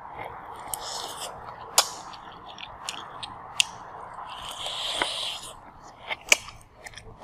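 Close-miked eating sounds from a person biting and chewing a piece of food held in her fingers. There are several sharp crisp clicks, the loudest about two, three and a half and six seconds in, and two longer hissy crunching stretches around one and five seconds in.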